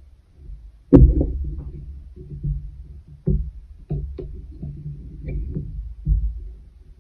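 A long metal weaving needle being worked through the taut yarn strands of a wooden pin loom: irregular dull thumps and plucks of the yarn against the wooden frame, with a sharp knock about a second in.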